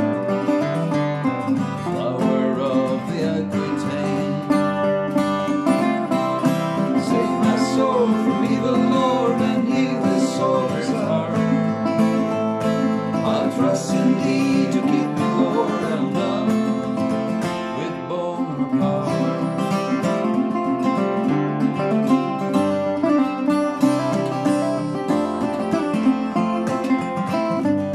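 A resonator guitar and a steel-string acoustic guitar playing a country-style tune together, with picked notes over steady rhythm.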